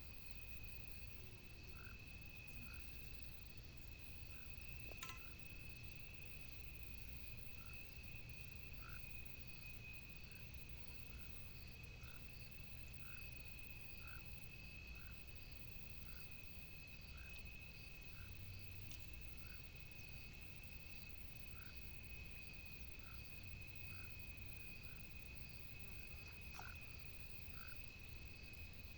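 Frogs calling: short notes repeating roughly once a second over a steady, high, continuous chorus. There is a low rumble underneath and a single sharp click about five seconds in.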